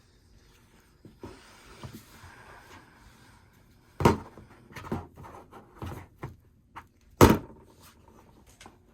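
Rustling as things are handled, then a string of sharp knocks and clunks. The two loudest come about four and seven seconds in.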